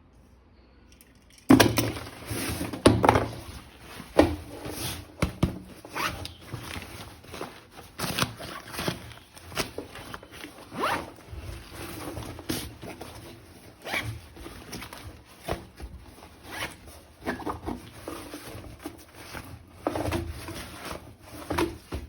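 Irregular clicks, scrapes and rustling from objects being handled, starting about a second and a half in and running in uneven bursts, the loudest near the start.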